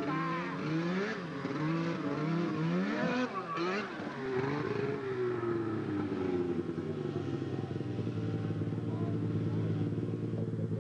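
Snowmobile engine revved again and again in short rising bursts while the sled sits stuck in mud. About four seconds in it winds down, then settles into steady running.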